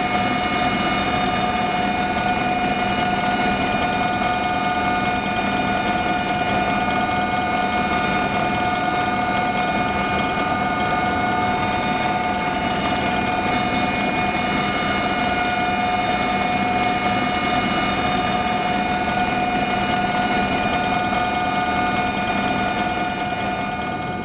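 Sikorsky S-76 helicopter in flight heard from inside the cabin: a steady turbine and gearbox whine made of several fixed high tones over a constant rumble, easing slightly near the end.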